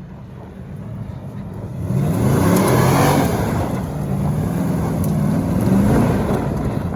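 A vehicle engine revving under load, growing louder about two seconds in as its pitch rises and then holds, and dropping back near the end.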